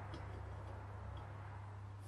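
A couple of faint, light metallic clicks as a greased throttle spindle is slid into the cast body of a Dellorto DHLA carburettor, over a steady low hum.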